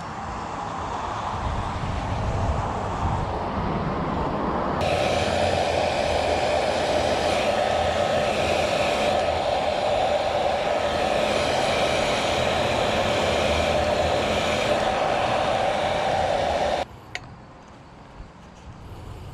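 Electric heat gun running, switched on about five seconds in and off suddenly about seventeen seconds in: a steady hissing blow with a fan-motor hum, after a few seconds of low rumbling noise.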